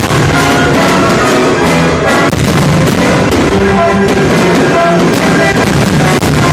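Loud music played over a fireworks display, with frequent firework bangs and crackles all through.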